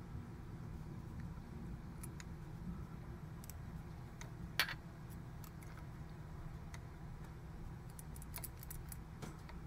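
Scattered faint clicks and ticks, with one sharper click about four and a half seconds in and a quick run of them near the end, over a steady low hum: small tools and the vise being handled while fly-tying cement is applied.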